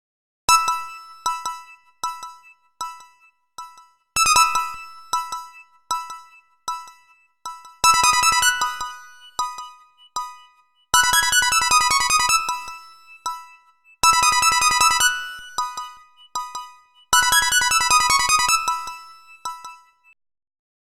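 Nokia 3128 ringtone melody played back as a MIDI tune on a synthesizer: a bright electronic tune of short notes that start sharply and fade quickly. A phrase repeats several times, with busier runs between single notes.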